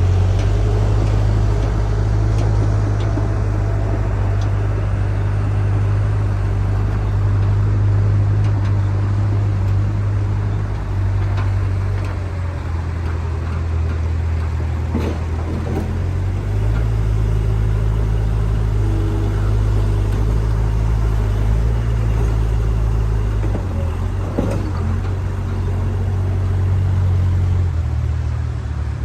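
Diesel engine of a JCB backhoe loader running, its note stepping up and down several times as the load changes, with two or three short knocks partway through.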